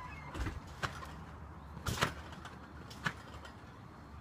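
Trampoline being bounced on: four faint, irregular knocks and thumps, the loudest about two seconds in.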